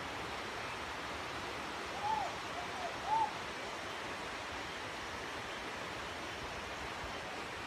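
Steady rush of a rocky stream, with a few short, arching hoot-like calls about two to three seconds in.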